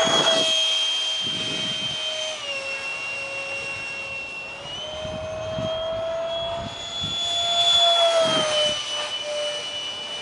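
Detrum 70mm electric ducted fan of a foam-board RC jet in flight, a steady high whine that changes pitch with the throttle. The pitch steps down about two seconds in, climbs again around five seconds, and drops back near nine seconds, swelling loudest around eight seconds.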